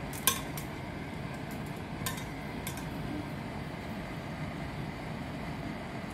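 Kitchen tongs clicking against a nonstick frying pan as salmon pieces are turned in a simmering cream sauce: one sharp clack just after the start and a lighter one about two seconds in, with faint ticks between, over a steady low rush.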